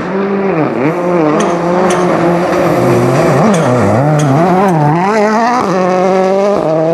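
Rally car engine under hard acceleration on a gravel stage, its pitch dropping and climbing again several times as the driver changes gear and lifts off and back on the throttle.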